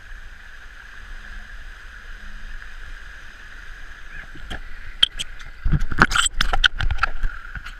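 Steady wind and water noise aboard a Dragonfly trimaran sailing fast through choppy water, with a constant hiss. From a little over halfway in comes a rapid cluster of loud knocks and thumps.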